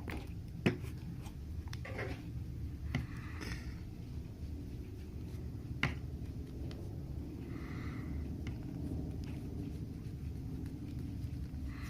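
A small tool scratching and picking at old adhesive on a phone's glass, with a few light ticks, the sharpest about a second in and again near the middle, over a low steady hum.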